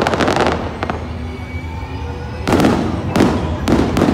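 Aerial fireworks shells bursting: a quick cluster of sharp bangs at the start, a brief lull, then a fresh volley of bangs and rapid pops from about two and a half seconds in.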